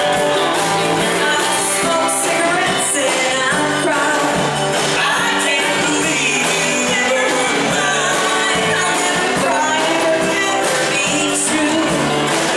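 Live band music: a woman singing lead over mandolin, electric guitar and drums.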